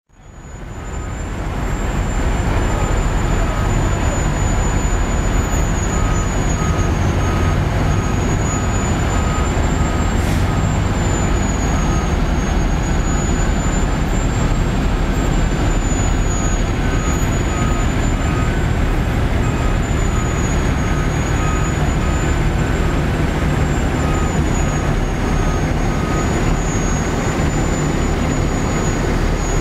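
Parked fire apparatus engines running at idle: a steady, dense low rumble that fades in over the first two seconds. A faint beeping repeats about once every two-thirds of a second through most of it, and a thin high whine wavers slowly in pitch.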